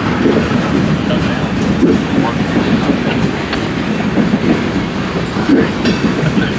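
Freight cars of a passing train rolling by: a steady rumble with irregular wheel clatter over the rail joints.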